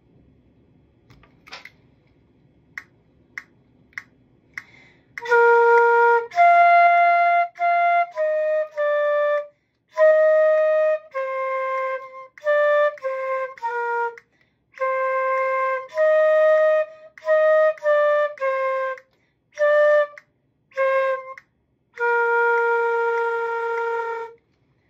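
Concert flute playing a short exercise melody of separate notes with brief gaps between them, ending on a long held note. A few soft clicks come before the first note.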